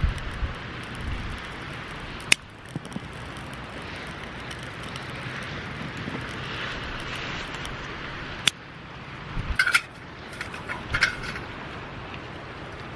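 Dry twigs being handled and fed into a small lit wood-burning camp stove: two sharp snaps, a few seconds apart, and short bursts of twig rattle near the end, over a steady hiss of wind and surf.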